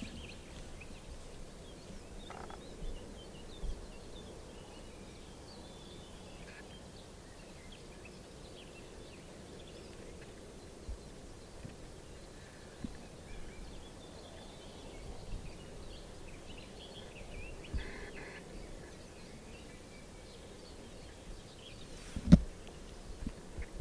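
Outdoor meadow ambience: a steady faint background hiss with scattered faint bird chirps. A single sharp knock near the end stands out above the rest.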